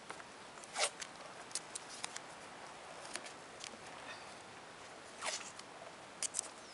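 Blue masking tape being pulled off its roll and torn into strips: several short rasps, the loudest about a second in and a longer one about five seconds in, with light ticks of handling between.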